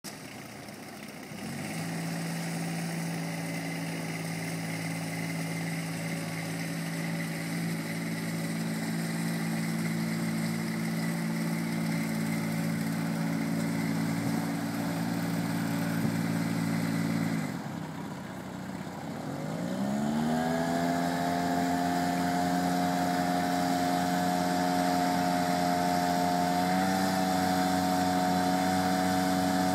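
A Walker ride-on mower and its towed paddock vacuum running at a steady speed. About two thirds of the way through, the sound falls away, then rises in pitch to a higher steady speed with a faint high whine above it.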